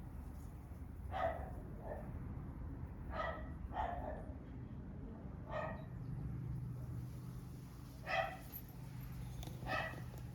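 A dog barking in single barks, six or seven of them spaced irregularly a second or more apart.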